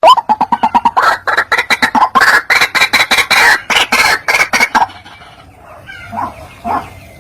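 White-breasted waterhen calling: a fast, loud run of repeated harsh notes, about ten a second, for some five seconds, then dying down to a few softer notes near the end.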